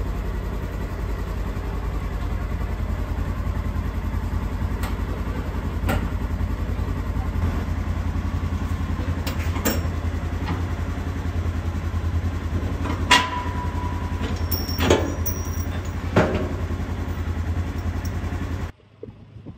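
A motor vehicle running with a steady low drone, with a few sharp clicks and knocks. The sound cuts off suddenly near the end.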